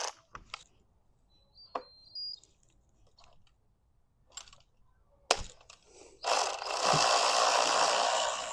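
Scattered sharp clicks of hand tools and engine parts being handled in the engine bay, then a steady hiss about two seconds from the end that is the loudest sound.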